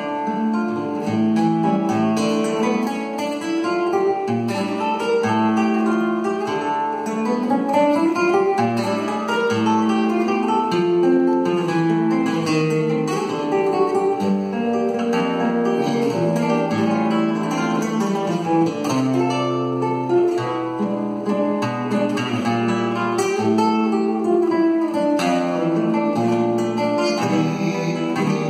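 Solo nylon-string classical guitar playing a continuous piece, a plucked melody moving up and down over repeated bass notes.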